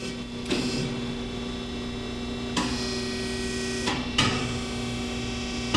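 Marvel-Spartan PA13/2 horizontal bandsaw running under power: a steady machine hum with a few sharp knocks from its moving parts.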